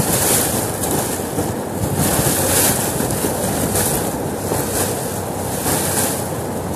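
Fast river current rushing past a boat, with wind buffeting the microphone in gusts.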